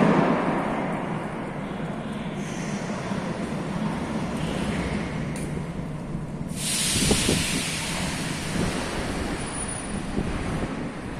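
Metro train noise echoing in an underground station: a steady rumble, joined about two-thirds of the way through by a sudden loud hiss.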